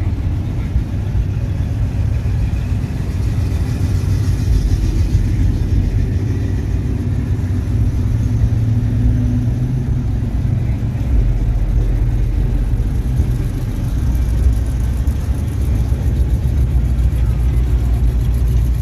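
Engines of classic cars and pickups rolling slowly past one after another, a steady low rumble.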